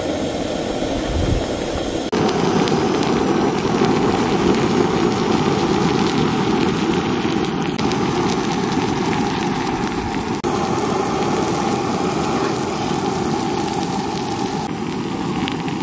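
Masala-coated whole fish sizzling in hot oil on a flat iron griddle (tawa) over a gas burner, a steady loud sizzle as it cooks through, with brief breaks about two seconds in and again just after ten seconds.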